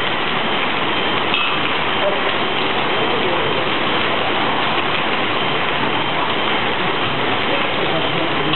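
Hail and rain falling hard on a paved street and pavement, a steady dense patter with no letup.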